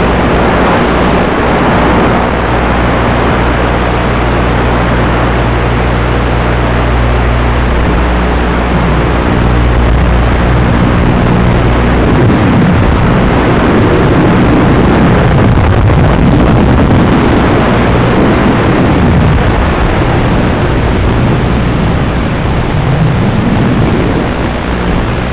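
XBR220 racing quadcopter's motors and propellers heard through the onboard camera's microphone under a loud rushing noise: a steady hum for about the first half, then the pitch rising and falling over and over as the quad flies.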